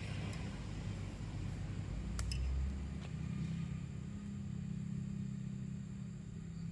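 Steady low electrical hum with a few faint clicks, about two and three seconds in.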